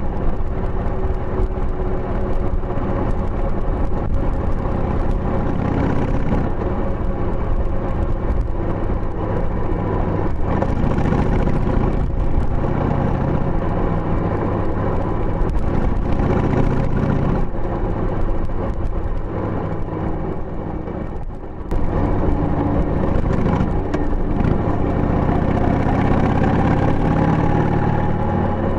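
A 2000 Harley-Davidson Sportster 883's air-cooled Evolution V-twin running under way through tapered mufflers with the baffles fitted, heard close to the engine. The engine note rises and falls with the throttle, drops briefly about 21 seconds in, then picks straight back up.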